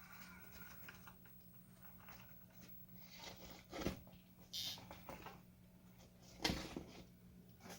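Faint scraping and clicking of a small RC crawler's tyres and chassis working over rock, with sharper knocks about four seconds in and again about six and a half seconds in, over a low steady hum.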